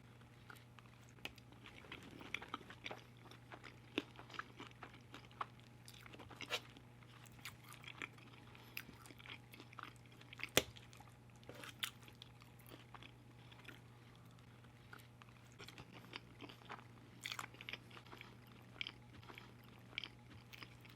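Close-miked chewing of loaded fries topped with melted cheese, caramelized onions and sauce: faint wet mouth clicks and smacks at an uneven pace, with a sharper click about ten and a half seconds in.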